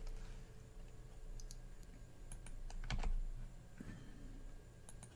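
A few scattered, irregular clicks on a computer keyboard, with a soft low bump about three seconds in, over a faint steady hum.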